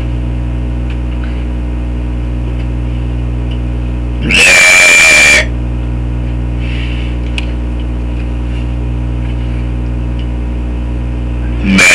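A kid's loud, drawn-out burp about four seconds in, lasting about a second, and another starting near the end. Between them a steady low hum.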